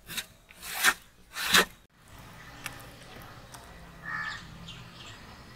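Three short, loud wet scraping splats as thick masala paste is slopped and scraped out of a bowl onto a tray of raw fish pieces, then a crow cawing once about four seconds in.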